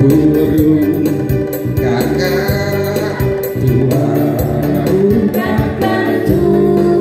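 A man singing live into a microphone through a small PA, with an electronic arranger keyboard playing the accompaniment and a steady beat.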